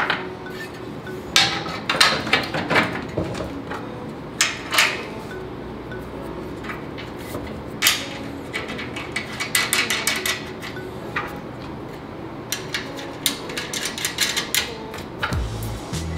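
Painted iron shelf-frame parts knocking and clinking together as they are fitted by hand: irregular metallic taps in several short clusters.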